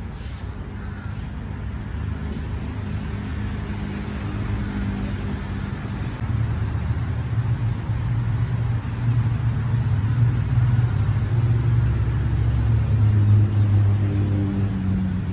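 Motor vehicle engine running: a low steady hum that grows louder through the middle and eases off near the end.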